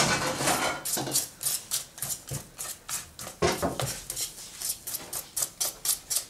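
A spoon stirring thick banana cake batter in a stainless steel pot, scraping and clinking against the pot's sides in quick, irregular strokes.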